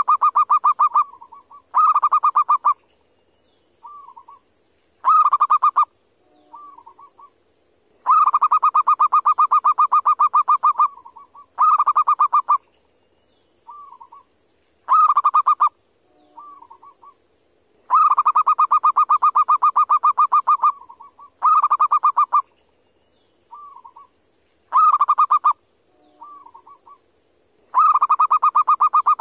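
Zebra dove (perkutut) calling: rapid trilled cooing phrases, a long one of about three seconds followed by shorter ones of about a second, with soft brief coos between, the sequence repeating roughly every ten seconds.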